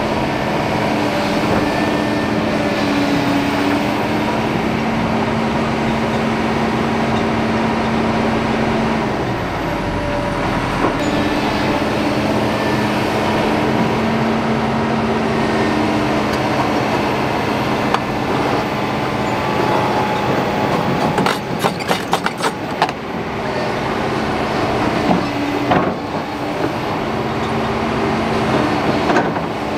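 Kobelco crawler excavators' diesel engines running under work, a steady hum whose pitch shifts several times. About three quarters of the way through comes a quick run of sharp metallic clanks.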